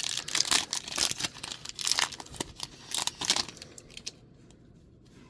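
Foil booster pack wrapper of Magic: The Gathering cards being torn open and crinkled, a run of crackling tears and rustles that stops about three and a half seconds in.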